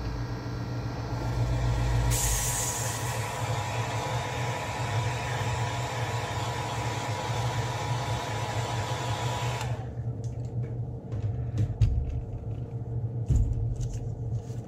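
Airbrush compressor running with a steady hum while an Iwata airbrush sprays paint, its air hiss starting suddenly about two seconds in and cutting off suddenly near ten seconds. After it stops, a few light clicks and two dull knocks are heard over the compressor.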